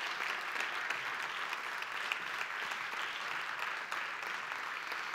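Theatre audience applauding steadily, a dense patter of many hands clapping, welcoming a guest onto the stage.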